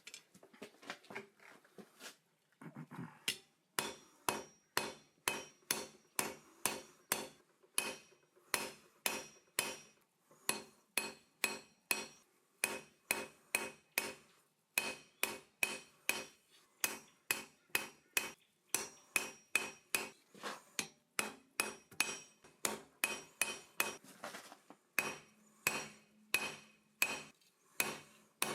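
Hand hammer forging iron on an anvil: a few light taps, then steady blows about two to three a second, each with a short metallic ring from the anvil.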